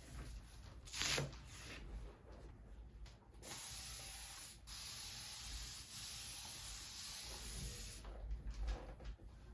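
A steady hiss of spray, about four and a half seconds long with a brief break near its start, preceded by a short sharp sound about a second in.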